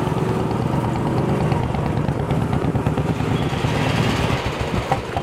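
Motorcycle engine running steadily while being ridden, with a fast, even engine beat.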